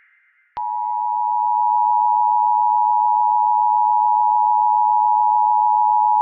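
Emergency Alert System two-tone attention signal, starting abruptly about half a second in and then held steady. It is the alarm tone that announces the spoken severe weather warning that follows.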